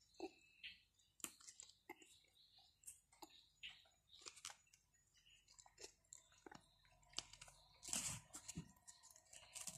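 Faint, close-up chewing of a person eating paratha flatbread with vegetable curry: soft wet mouth sounds with scattered small clicks and crackles, a little louder near the end.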